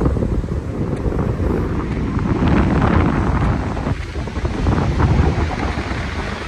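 Wind buffeting the microphone in gusts, over the wash of surf on a shingle beach.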